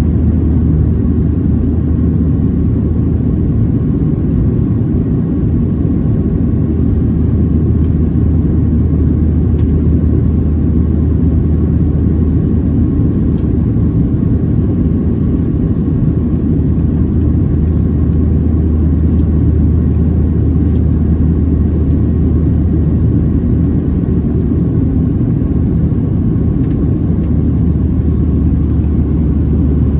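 Steady cabin rumble of a Boeing 737-700 in flight, its CFM56-7B turbofan engines and airflow heard from inside the cabin: a loud, even low drone with a faint steady hum above it.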